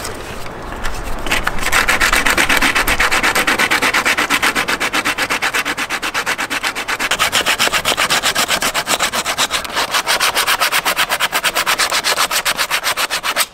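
Fast, evenly repeated rubbing strokes, several a second, starting about a second in.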